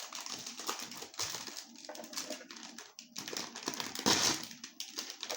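Crunchy pork rinds (chicharrones) being chewed close to the microphone: irregular crackling crunches, the loudest about four seconds in.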